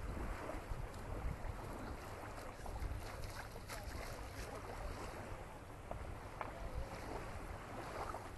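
Small waves lapping on a sandy shore, with wind on the microphone as a fluctuating low rumble.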